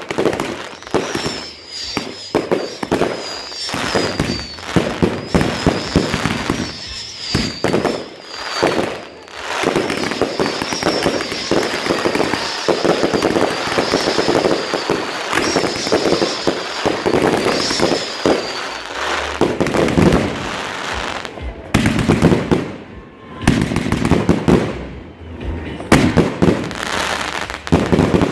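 Consumer fireworks cakes (Big Party 2 with Flores de crackling) firing shot after shot: dense bangs and crackling bursts, with a high wavering tone over roughly the first two-thirds. The barrage eases briefly twice in the last third before picking up again.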